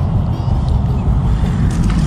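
Steady low rumble with small splashes of sea water against shoreline rocks.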